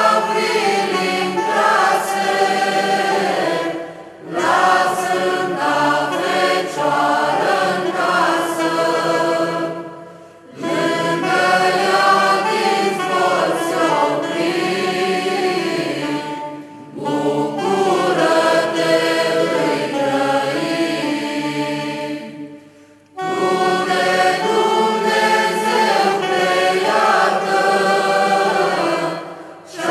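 Mixed choir of men and women singing a Romanian Christmas carol (colind), in phrases of about six seconds with a short pause for breath between them.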